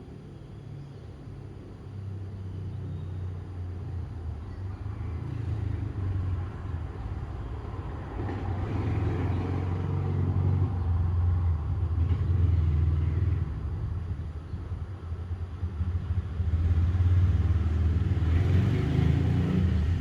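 A low rumble that swells and fades, loudest about halfway through and again near the end.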